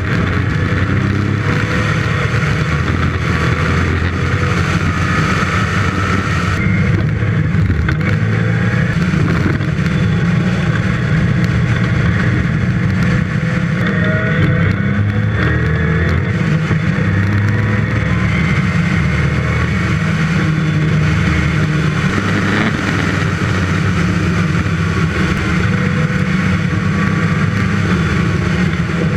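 Westfield's 5-litre V8 engine heard onboard at speed, its note rising and falling as it is driven hard and shifts gear, with wind and road noise. The upper part of the sound changes abruptly about seven seconds in.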